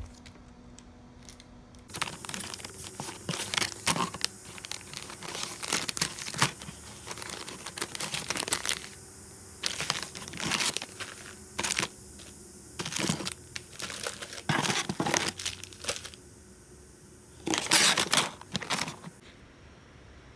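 Plastic packaging crinkling and rustling in irregular bursts as hands rummage through pouches of cat treats, starting about two seconds in and stopping shortly before the end.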